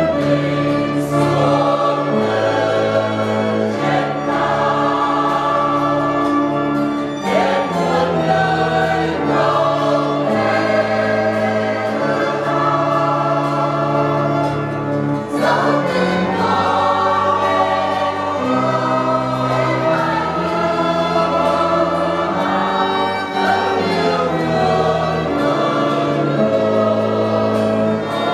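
Mixed church choir singing a Vietnamese hymn, with electronic organ chords and bass underneath, joined by violin and guitar. The chords change every few seconds, with brief breaks between sung phrases.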